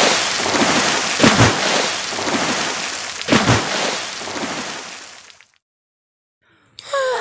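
Water rushing and splashing as a giant sea monster's tentacle surges out of the sea, with three deep booms a second or two apart. It fades away about five and a half seconds in, and a brief silence follows.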